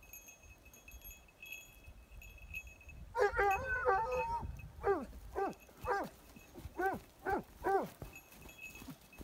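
Dog giving voice on a scent trail: one drawn-out, wavering bay about three seconds in, then six short yelps, each falling in pitch.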